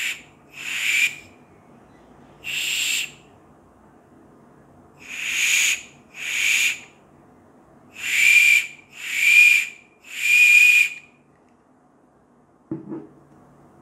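Emergency whistle built into a paracord survival keychain's buckle, blown by bursts from a can of compressed air: about eight short high-pitched blasts, each under a second, the last three the loudest. A small handling click near the end.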